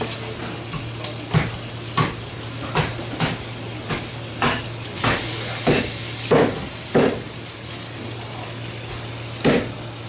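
Big kitchen knife chopping crosswise through a large Japanese Spanish mackerel, each stroke a sharp knock as the blade goes through the fish to the cutting board. About a dozen knocks, one or two a second, with a pause of about two seconds near the end, over a steady low hum.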